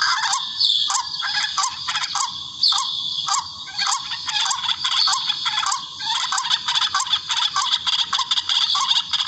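Rails (tikling) calling in a lure recording for bird hunting: a dense, continuous chorus of rapid repeated calls laced with sharp clicking notes.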